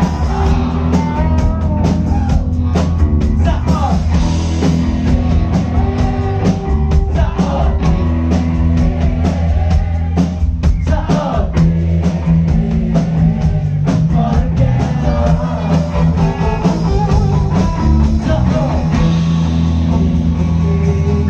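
Rock band playing live: electric guitars and bass over a steady drum beat, with singing.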